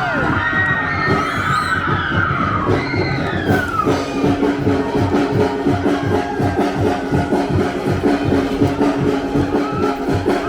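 Music with a fast, steady drum beat. Audience cheering and whoops ride over it for the first few seconds and die away, and a sustained held note comes in about four seconds in.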